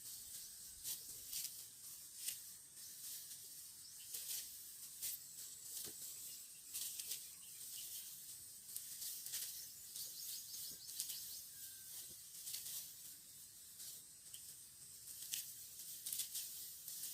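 Rice stalks rustling and swishing as they are cut by hand with a harvesting knife: irregular crisp hissing strokes, roughly one every half second to second.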